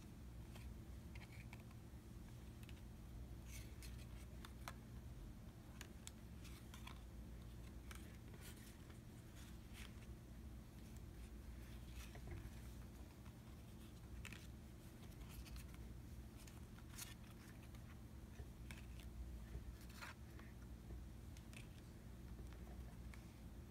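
Pokémon trading cards being handled: faint, scattered soft clicks and slides of cards taken off a stack and laid down on a table, over a low steady hum.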